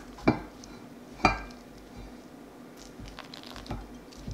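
Glass clinking: two sharp clinks about a second apart, then a few fainter taps, from a glass measuring cup of ice water and a glass mixing bowl while pie dough is worked with a silicone spurtle.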